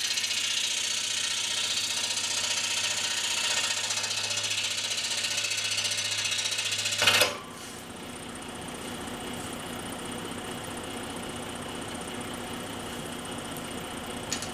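Scroll saw cutting a small wooden part, a loud, fast, high-pitched buzz that cuts off abruptly about seven seconds in. A quieter steady hum carries on for the rest.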